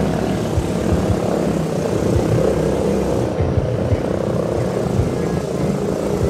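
Small motors running steadily: a sustained mechanical hum holding several pitches at once, with scattered low bumps.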